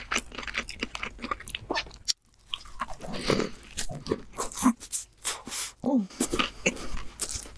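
Close-miked crunching, biting and chewing of king crab legs coated in crushed hot Cheetos, as the meat is bitten from the shell; the crunching stops briefly about two seconds in.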